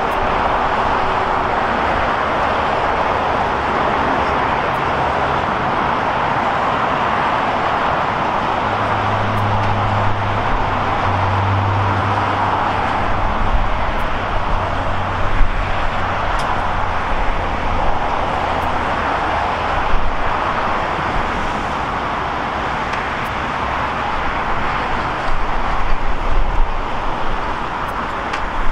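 A steady, loud roar of engine noise around the airport, from jet aircraft and passing road traffic. A deeper engine hum rises out of it about ten seconds in and fades a few seconds later.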